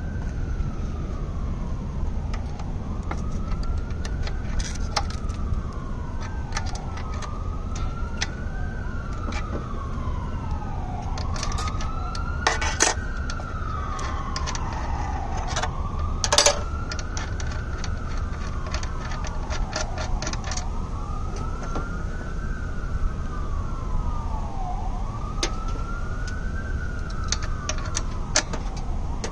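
Emergency-vehicle siren wailing, its pitch rising and falling about every three seconds, with overlapping wails. Sharp metallic clicks are scattered through it, the loudest two about 13 and 16 seconds in: a wrench and hands working the cable nuts on the power inverter's terminals. A steady low rumble runs underneath.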